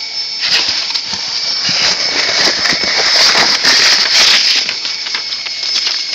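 Packaging being handled during an unboxing: paper or plastic rustling and crinkling with many small clicks, loudest about three to four seconds in.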